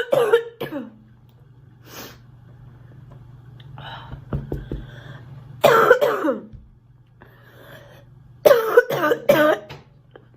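A girl coughing in bouts: a quick run of coughs at the start, a single harsh cough with a falling voiced tail in the middle, and a run of about four coughs near the end, with softer breaths between.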